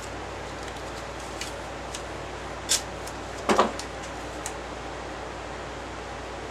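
A few short scrapes and clicks of tape being pulled and put on, the loudest a brief scrape about three and a half seconds in, over a steady background hum.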